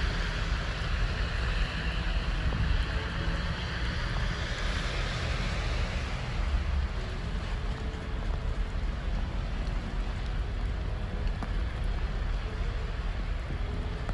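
Wind buffeting the microphone over a steady rushing noise of water and waves.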